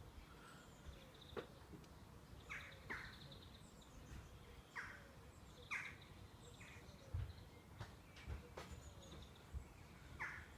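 Faint birds chirping: short, quick downward-sweeping calls every second or two over quiet background noise, with a few soft low thumps in between.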